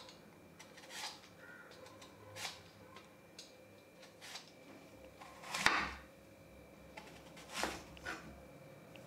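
A potato peeler scraping the skin off an apple in separate faint strokes, one every second or two. Near the end, a knife cutting into the peeled apple on a wooden board.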